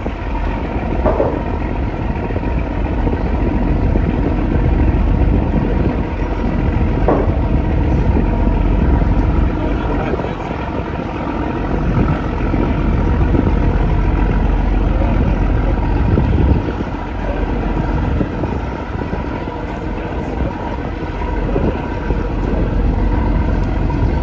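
Steady low rumble of a riverboat's engine running under way, with a faint steady hum above it.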